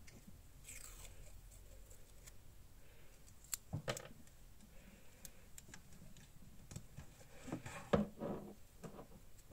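Paper crafting on a journal: scattered soft taps, clicks and paper rustles as pieces of paper and tape are handled and pressed onto the pages, with small clusters of knocks about three and a half seconds in and a louder one around eight seconds in.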